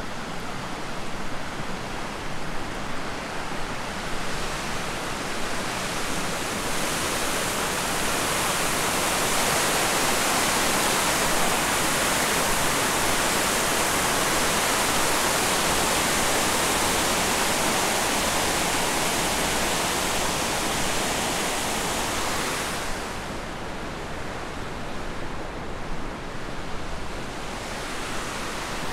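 Shallow river water rushing over a small cascade in the riverbed: a steady rushing noise that grows louder about a quarter of the way in and drops off about three-quarters of the way through.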